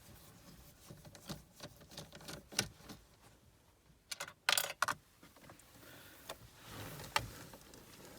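Scattered light clicks and taps of a screwdriver and hands working a screw out of the plastic dashboard trim, with a small cluster of sharper clicks about halfway through.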